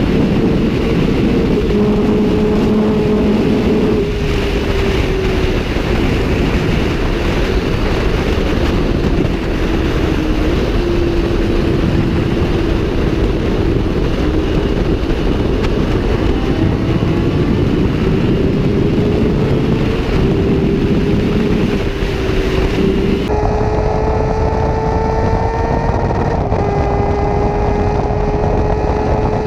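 Sport motorcycle engine running at speed under heavy wind rush, its note rising and falling with the throttle. About 23 seconds in, the wind hiss drops away suddenly and the engine holds a steadier, higher note.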